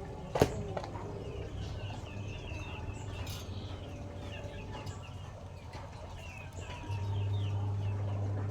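Chicks peeping in many short, high chirps. There is one sharp click shortly after the start, and a steady low hum comes in near the end.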